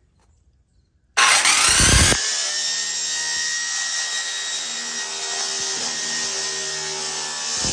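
Circular saw with its blade mounted backwards cutting old sheet-metal roofing tin. It cuts in suddenly about a second in, loudest for the first second, then carries on as a steady loud cut with ringing tones.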